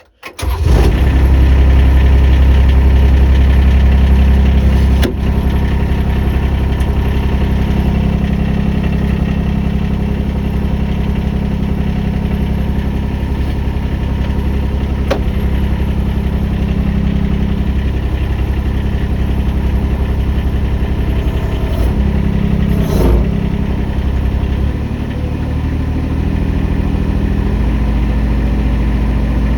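Mini excavator engine starting and running, heard from inside the closed cab: it catches within the first second, runs steadily, drops a little in level about five seconds in, with a brief clatter about three quarters of the way through.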